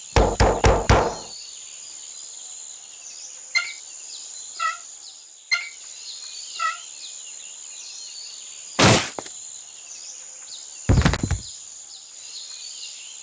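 Cartoon sound effects: a rapid burst of knocking at the start, four short bird-like chirps in the middle, then one loud knock and, about two seconds later, a heavier thud, over a steady high forest background hiss.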